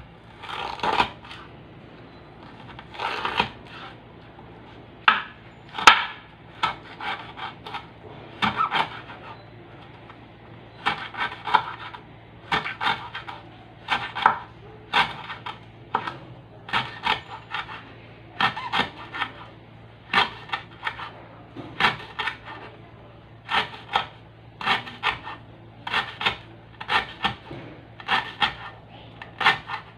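Chef's knife chopping a stalk on a wooden cutting board: quick runs of short knocks, a run about every second or so.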